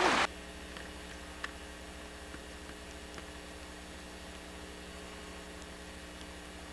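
Loud outdoor noise that cuts off abruptly right at the start, then only a faint steady electrical hum and hiss with a few faint ticks: the camcorder's own recording noise with no outside sound.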